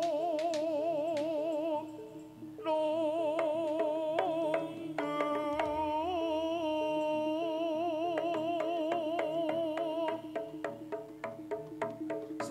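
Live jaranan music: a wavering, vibrato melody line held over a steady lower tone and sharp percussive strokes. The music drops briefly about two seconds in, then resumes.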